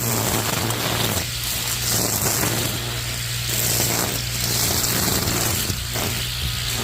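Homemade battery-powered grass cutter running with a steady motor hum, its cutting noise swelling and easing every second or so as it swings through grass.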